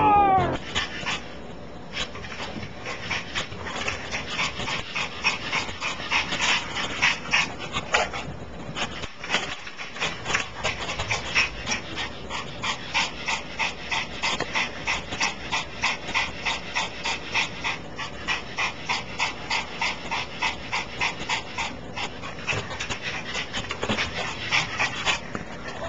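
A Pomeranian panting rapidly, about three breaths a second, with some whimpering.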